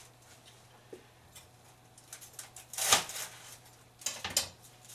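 Food and containers being handled on a kitchen counter: scattered light knocks and rustles, the loudest just under three seconds in and again a little after four seconds, over a low steady hum.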